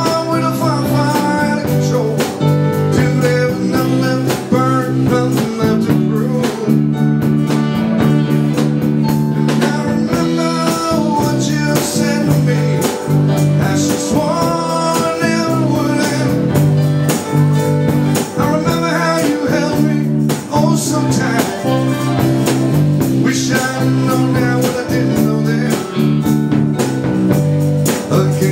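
Live band playing a blues-rock number, with electric guitar.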